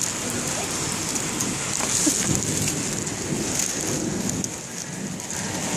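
Steady rain falling on a wet street: an even hiss with many small drop ticks.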